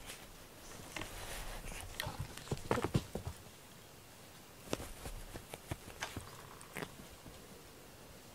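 Cats moving about on a fleece blanket and floor: scattered soft knocks, taps and rustles, in a dense little cluster about a third of the way in and a few more taps past the middle.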